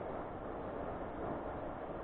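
Steady wind noise on the microphone: an even rushing hiss with no distinct events.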